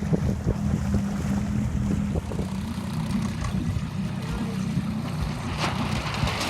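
Small boat's outboard motor running at a steady drone, with wind and water noise on the microphone; a brief hissing rush near the end.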